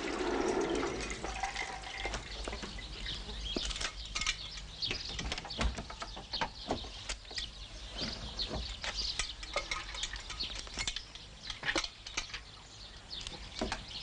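Milk pouring from a metal can into a metal pot for about the first second and a half, followed by a run of scattered light clinks and knocks.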